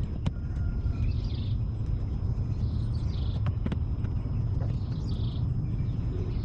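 Outdoor background of a steady low rumble, with a bird giving a short call about every two seconds and a few sharp clicks and taps as the old receptacle cover is handled.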